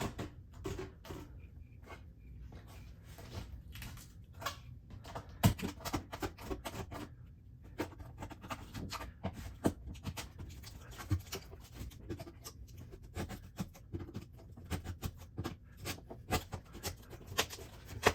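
Utility knife cutting and scraping around the edge of a hole in a hollow-core door's thin skin: irregular scratchy cuts and clicks.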